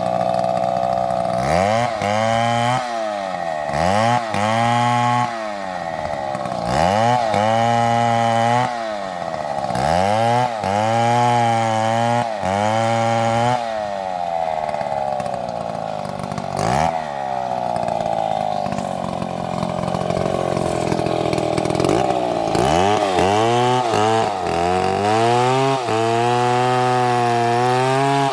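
Two-stroke chainsaw running at high revs while cutting wood. Its engine pitch sags and climbs back again and again, roughly every two seconds, then holds steady for a few seconds before the dips resume near the end.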